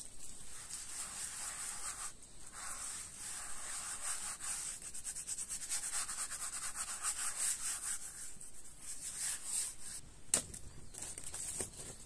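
Rapid, rhythmic rubbing strokes, several a second, pausing briefly about two seconds in and again near ten seconds, followed by a single sharp knock.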